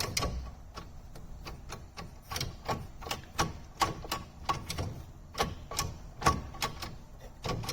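Manual gear shift lever and linkage of a VW Jetta 1.9 TDI worked through the gears, a string of irregular clicks and clunks, about two or three a second, as each gear is selected. This is a gear test on the newly replaced shifter selector shaft.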